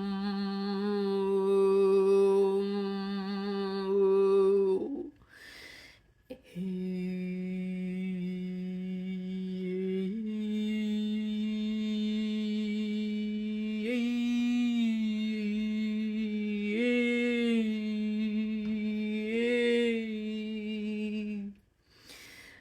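A single voice humming long, held low notes, one sustained tone after another. There is a breath about five seconds in and another near the end, the pitch steps up slightly about ten seconds in, and it swells briefly three times later on.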